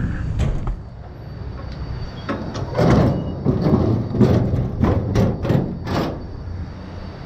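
Six or so short, harsh scraping and rustling noises in quick succession over about four seconds, over a steady low engine hum.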